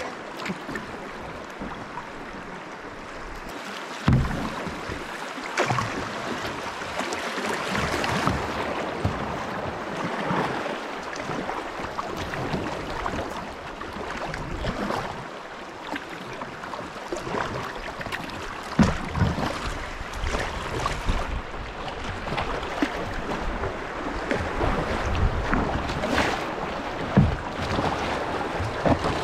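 Kayak moving on river water: a steady rush of water with wind on the microphone, and every few seconds a sharper splash or knock.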